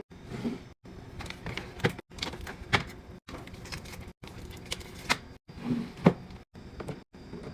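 Clicks, knocks and light clatter of containers being handled and set down while a fridge is restocked, in quick cuts that stop the sound abruptly every second or so.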